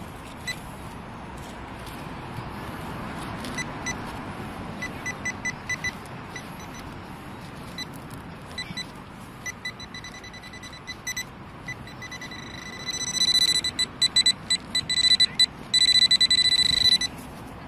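Handheld metal-detecting pinpointer beeping as it is probed through loose soil in a dug hole: scattered short beeps, then rapid beeps running into an almost continuous tone near the end as it closes on a buried metal target. Soft scraping of soil underneath.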